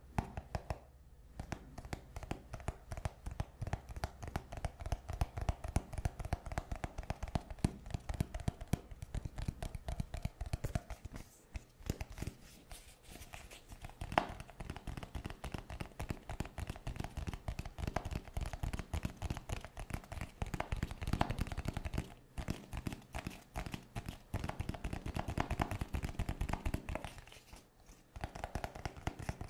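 Fingertips and nails tapping rapidly on a cardboard Xiaomi product box, a dense run of quick light taps with a few brief pauses.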